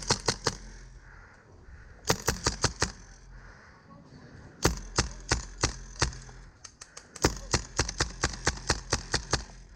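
Airsoft guns firing in quick strings of sharp shots, four volleys in all, the last the longest, at several shots a second.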